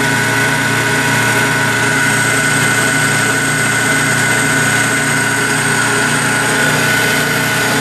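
Electric motor running steadily and turning a generator under load, a steady high whine over a low hum.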